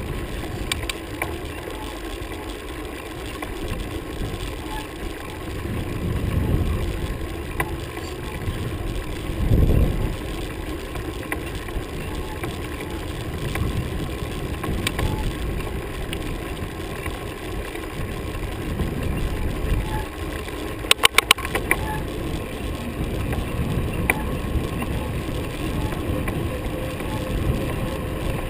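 Wind rushing over the microphone and road noise from a bicycle rolling on asphalt, with two louder gusts early on and a quick run of sharp clicks about two-thirds of the way through.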